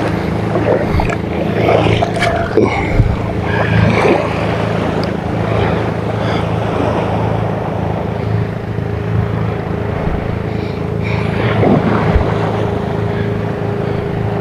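Boat engine running steadily, a constant low drone with a few light clicks over it.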